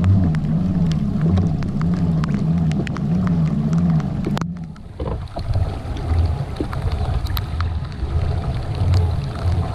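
Native Titan Propel pedal drive whirring as the pedals turn, its low hum rising and falling in pitch about twice a second with the pedal strokes, with scattered light ticks of rain on the camera. The level dips briefly about halfway, and the rising-and-falling hum gives way to a steadier pulsing.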